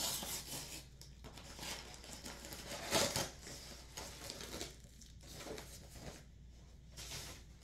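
A brown paper mailer being torn open and rustled by hand, with crinkling as the wrapped item inside is pulled out; the loudest rip comes about three seconds in.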